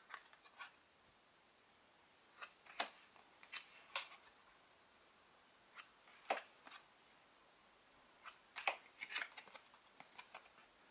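Trading cards being handled and sorted: soft clicks and flicks of card against card, coming in a few short clusters.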